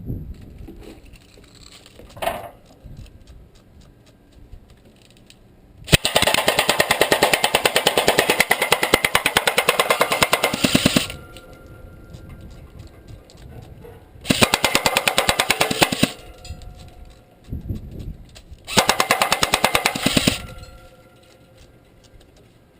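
Airsoft M4A1 carbine firing on full auto in three bursts: a long one of about five seconds, then two shorter ones, each a fast, even rattle of shots. Fainter clicks and knocks come between the bursts.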